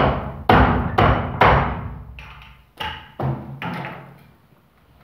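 A run of hard knocks: four in quick succession, then three more after a short pause, each ringing on briefly with a low hum as it dies away.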